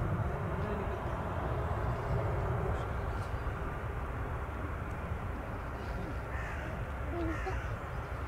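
Crows cawing a few times in the second half over a steady low rumble.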